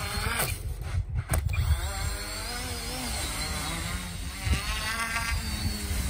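Twin 950 kV brushless electric motors with propellers on a remote-control raft, buzzing, their pitch rising and falling as the throttle is worked for differential-thrust steering. The pitch climbs sharply about four to five seconds in.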